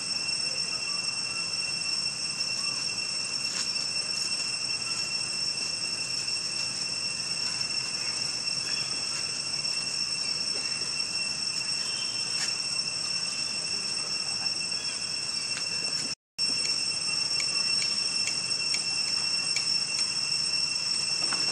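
Steady high-pitched drone of insects in chorus, with a few faint ticks; it drops out for a moment about sixteen seconds in.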